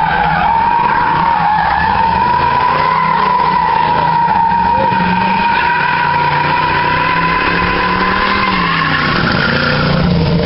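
A car's tyres squealing in one long, steady screech as it slides with the wheels spinning, over the low rumble of its engine under hard throttle. The squeal wavers slightly in pitch and stops shortly before the end.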